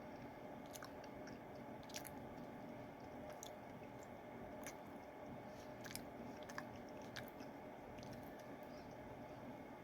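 Faint chewing of a mouthful of soft sweet potato pie, with scattered small mouth clicks and smacks, about one every second, over a steady low room hum.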